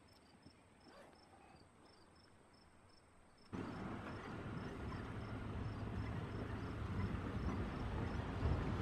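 A faint, high, regular chirp repeating about three times a second over a quiet background. About three and a half seconds in, a sudden cut to a much louder steady noise with a low hum: a vehicle engine running, with wind on the microphone.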